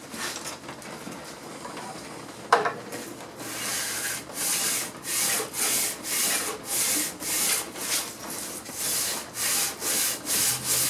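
The sole of a No. 5 bench plane being rubbed back and forth on coarse sandpaper to flatten it. It sets off with a single sharp knock, then settles into a steady rasping rhythm of about two strokes a second.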